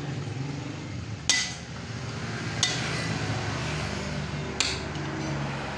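Three sharp metallic clinks of hand tools striking steel engine parts, each with a short ring, over a steady low hum.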